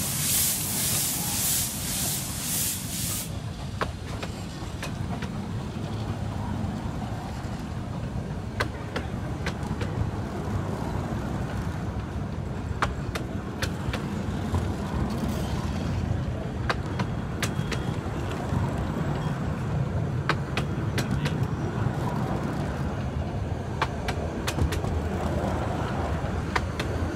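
Steam locomotive on the 15-inch-gauge Romney, Hythe & Dymchurch Railway pulling away, its exhaust beats hissing in even pulses that stop about three seconds in. Then the miniature passenger coaches roll past with a steady low rumble and scattered sharp clicks from the wheels on the track.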